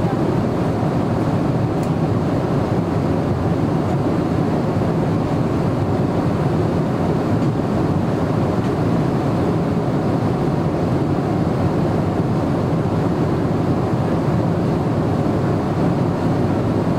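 Steady cabin noise of a Boeing 777-300ER in flight: an even, unbroken rush of airflow and engine noise heard inside the passenger cabin.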